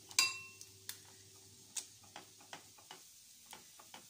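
A metal spoon clinks once against crockery with a short ring about a quarter second in, then gives scattered light taps and scrapes as it spreads beaten egg over a slice of bread on a plate.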